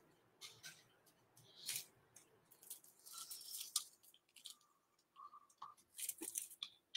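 Handling noise: irregular crinkling and rustling in short bursts with a few clicks, the longest stretch a little past the middle.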